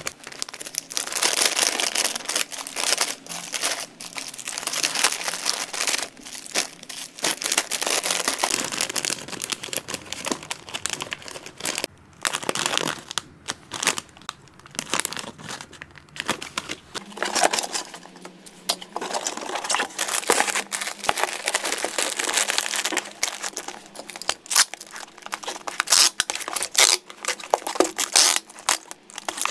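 Plastic snack bags and a plastic pouch crinkling and rustling as they are handled and packed, with many small clicks and taps. Near the end, packing tape pulled from a hand-held dispenser onto a cardboard box.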